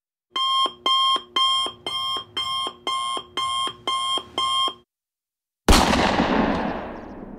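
Alarm-clock beeping, nine even beeps about two a second. After a short pause comes a sudden loud boom that dies away over about two seconds: an intro sound effect.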